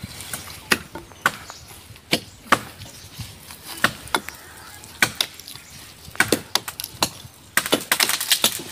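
An axe chopping into a tree trunk, with sharp strikes on the wood coming irregularly about every half-second. Near the end a quick run of lighter knocks follows.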